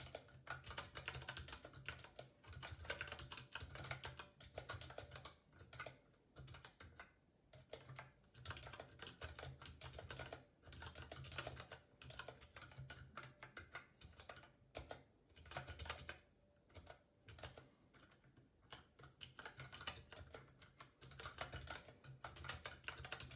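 Typing on a ZSA Moonlander split keyboard with unlubricated Cherry MX Brown tactile switches fitted with rubber O-rings. It is a fast, continuous run of keystroke clicks, broken now and then by short pauses.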